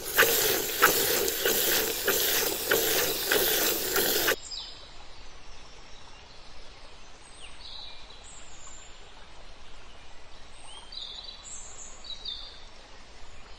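A loud, scratchy hissing noise with fast ticks that cuts off suddenly about four seconds in, followed by a quiet background with a few short, high bird chirps scattered through the rest.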